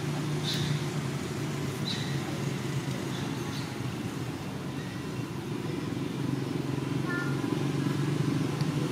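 A baby macaque giving a few faint, short, high squeaks, over a steady low hum.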